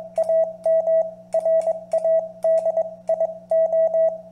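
Morse code (CW) sent as a single steady beep, keyed on and off in a quick pattern of dots and dashes, over a steady low hum.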